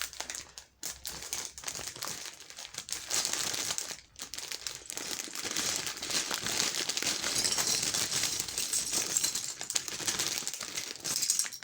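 Plastic bags of Lego pieces crinkling and rustling as they are handled and opened, with a steady run of fine crackles and a short pause about four seconds in.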